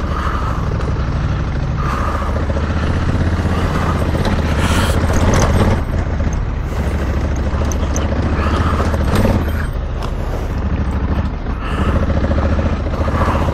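Honda Africa Twin's parallel-twin engine running steadily at a light, even throttle while the motorcycle rides a dirt track, with tyre and road noise and a few short knocks from the rough surface.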